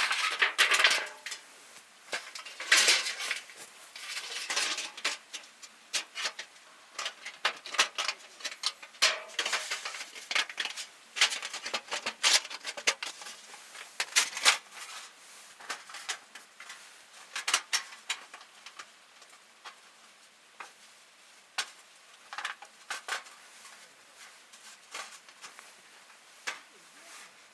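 Irregular clinks, clatters and knocks of camp cookware and utensils being handled, busiest in the first half and sparser toward the end.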